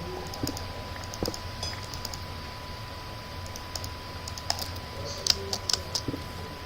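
Scattered light clicks and taps at an irregular pace, a few louder ones about five to six seconds in, over a faint steady high tone.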